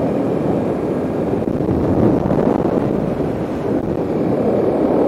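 Steady rush of wind over a helmet mic on a Kawasaki KLX 300 dual-sport motorcycle cruising at about 50 mph. The bike's engine runs underneath the wind noise.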